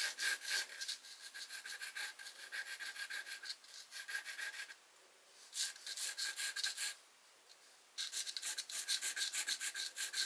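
Charcoal pencil shading quickly on canvas sheet: rapid back-and-forth scratching strokes, several a second, in bursts that stop briefly twice, about five and about seven seconds in.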